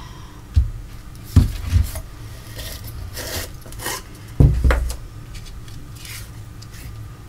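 Tabletop handling noises: a few dull knocks, the loudest about four and a half seconds in, with rubbing and scraping as a plastic tub of glue is picked up, opened and set down on a wooden table.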